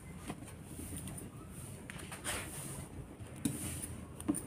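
Wood fire burning in a clay mud stove, with a few sharp crackles and knocks as sticks of firewood are pushed into it.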